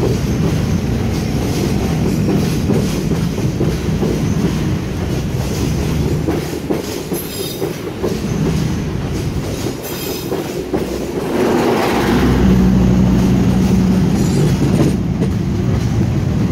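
Passenger train coaches rolling past close below, steel wheels running over rail joints and points with a clickety-clack. There are short high squeals about seven and ten seconds in, and a steady low hum joins and grows louder from about twelve seconds.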